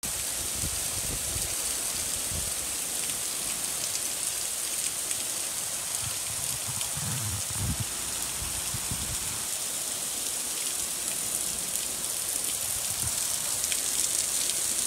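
Heavy hurricane rain pouring down onto open floodwater: a steady, even hiss.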